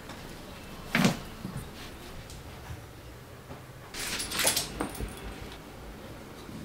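A small dog gives one short bark about a second in. Fabric rustles around four seconds in as clothes are handled and folded.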